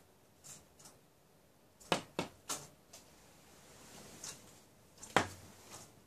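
Woodpecker pecking at a window grille: three sharp knocks in quick succession about two seconds in, another loud knock near the end, and fainter taps between.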